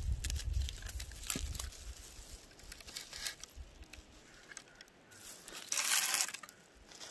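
Small knife taps and crunches as an onion is cut on a wooden board, then a brief loud crinkle of a plastic grocery bag about six seconds in.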